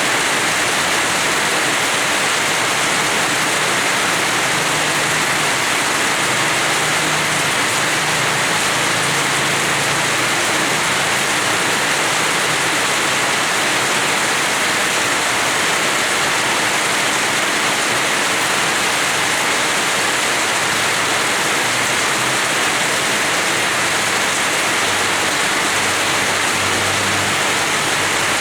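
Steady rain falling in a yard, an even, unbroken hiss.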